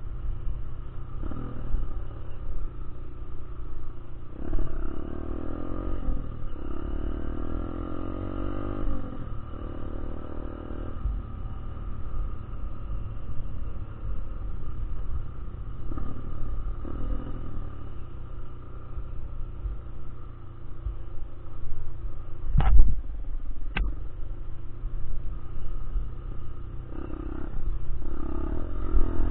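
Honda Bros 150 single-cylinder four-stroke motorcycle engine being ridden hard, its revs rising in several pulls over the first ten seconds and then running steadier, with heavy wind rumble on the rider-mounted microphone. About 23 s in there is a sharp thump, the loudest sound, followed a second later by a lighter click.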